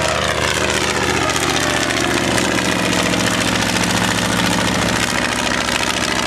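Fleet 16B biplane's engine and propeller running steadily in flight, the pitch falling over the first couple of seconds and then holding level.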